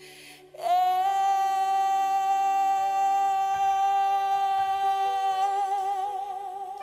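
Background music: a singer holds one long note, steady at first and wavering with vibrato near the end, over soft sustained accompaniment.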